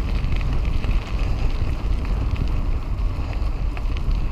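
Wind buffeting a helmet-mounted action camera's microphone while riding a mountain bike, a steady low rumble with faint scattered ticks and rattles from the bike on the trail.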